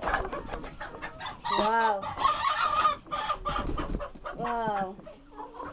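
A flock of laying hens clucking and calling in short, irregular bursts.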